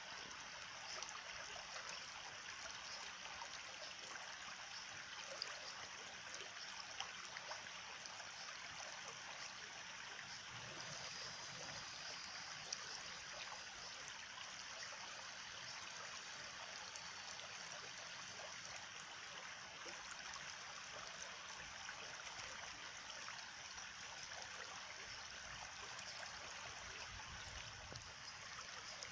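Stream of water flowing and trickling steadily.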